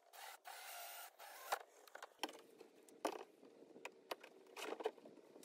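A cordless drill runs in short bursts into the rim of a plastic trash can during the first second. After that come scattered plastic scrapes and sharp clicks as parts are fitted to the can by hand.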